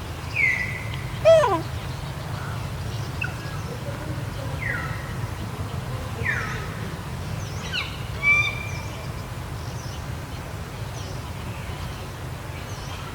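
Short, high animal calls, each sliding down in pitch, heard about six times with gaps between them, over a steady low hum.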